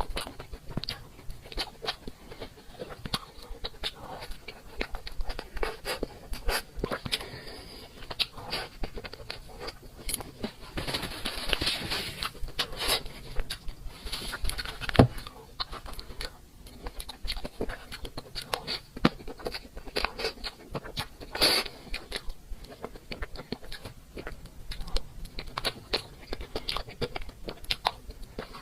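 Close-up chewing and biting while eating cake, with many small crunches and clicks and some scraping.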